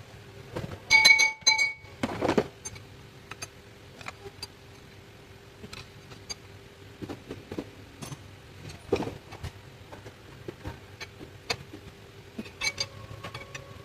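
Metal hand tools and parts clinking while an engine is being taken apart: a few loud ringing metal clinks about a second in, then scattered light clicks, taps and a brief scrape, over a faint steady hum.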